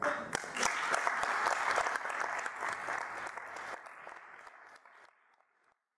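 Lecture-theatre audience applauding, a dense patter of many hands clapping that fades out over the last couple of seconds.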